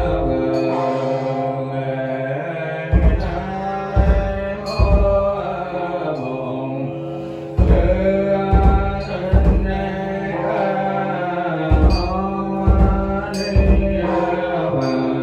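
Buddhist chanting set to music over sustained held tones, with deep drum beats struck irregularly, roughly once a second in clusters.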